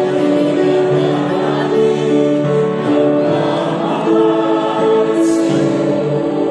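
Small church choir of men and women singing a hymn in long held notes, amplified through microphones.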